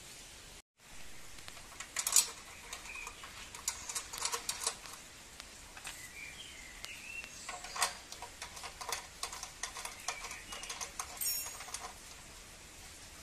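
Clicks, clinks and rattles of the mini tiller's metal parts and fittings being handled and fitted by hand during assembly, in irregular clusters. A few short bird chirps sound in the background.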